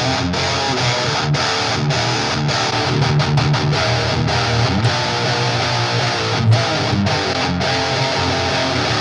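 Electric guitar played through a Line 6 Helix modeler with a 2x12 cabinet impulse response, a continuous riff of full, dense notes.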